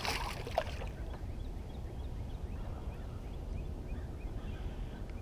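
A small splash as a released small channel catfish drops back into the river, then faint, repeated short chirping calls of distant birds over a low, steady background rumble.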